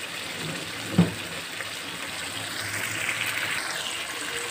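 Chicken in thick gravy sizzling in a kadai as it is fried down over a medium flame, with the gravy's water cooking off. A wooden spatula stirs it, with one sharp knock about a second in.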